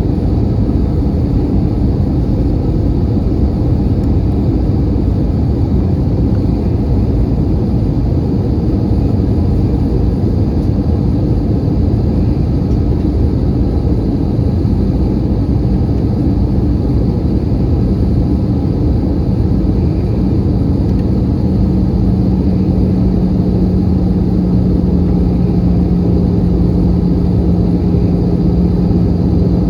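Steady roar of an Airbus A320 airliner, heard inside the passenger cabin. About two-thirds of the way in, a steady low hum grows stronger and holds.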